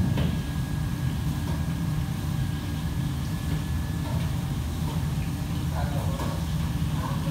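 Steady low drone of commercial kitchen ventilation fans, with a faint high whine above it and a little clatter of work near the end.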